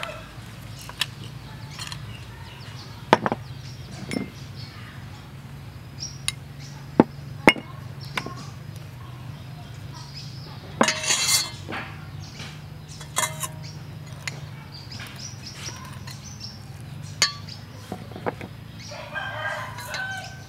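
A metal spoon clinking and scraping against a stainless steel mixing bowl as minced pork filling is stirred, with sharp clicks every second or two. A rooster crows near the end, over a steady low hum.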